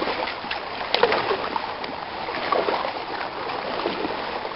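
Kayak paddles dipping and splashing in river water, irregular strokes over a steady wash of moving water, from sit-on-top kayaks under way.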